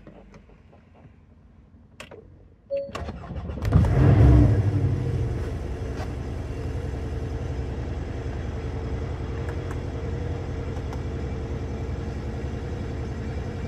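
Porsche 718 Cayman engine starting: a few clicks, then the starter cranks briefly. The engine catches about four seconds in with a rev flare and settles into a steady idle.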